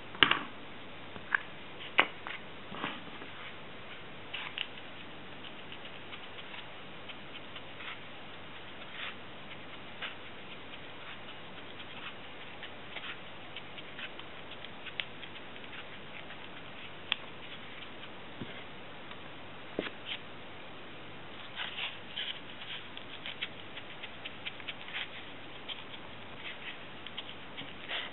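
Scattered light clicks, taps and scratches of small objects being handled, over a steady hiss, with a busier patch about three-quarters of the way through.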